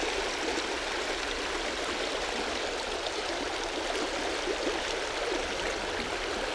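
Small rocky trout creek running fast over a shallow gravel riffle: a steady wash of water noise with small gurgles through it.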